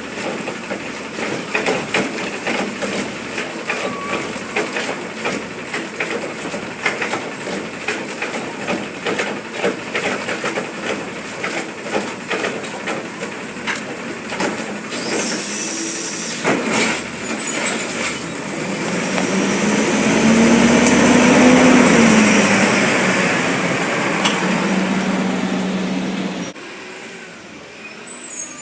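Recycling truck at work: its diesel engine running under a dense clatter of knocks and rattles, a short hiss of air about halfway through, then the engine revving up and down for several seconds as the hydraulics work, cutting off sharply near the end.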